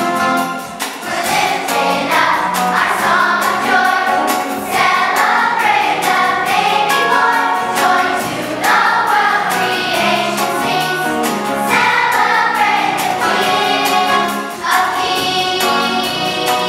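A children's choir singing an upbeat song together over instrumental accompaniment with a steady beat.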